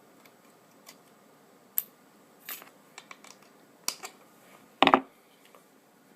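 Small sharp clicks and snaps of the excess heater wire being worked off from under a heat-sealer heater bar by pulling and tearing, with a louder knock of the bar or tool being handled about five seconds in.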